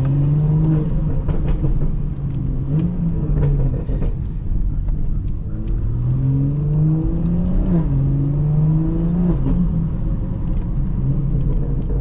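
BMW 440i's turbocharged B58 straight-six, stage 2 tuned with a catless downpipe and resonator delete, accelerating hard. The engine note climbs and drops back at the upshifts in two runs: one in the first three seconds and another from about six to nine seconds in.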